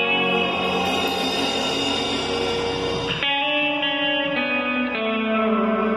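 Instrumental surf rock played live by a band of two electric guitars and a bass, the guitars drenched in reverb. About three seconds in, the dense, noisy strumming gives way to cleaner, held guitar notes.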